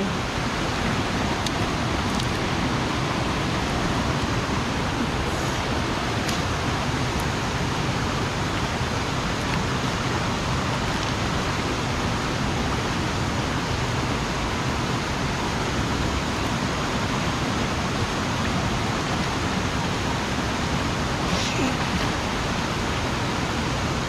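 Steady rushing of a waterfall's falling water.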